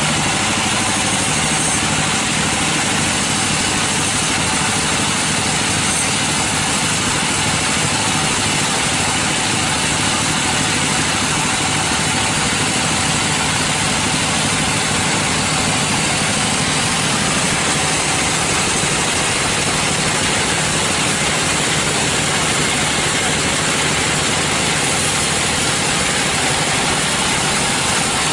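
Sawmill machinery running steadily, an even, loud mechanical noise with a faint constant hum and no change in speed.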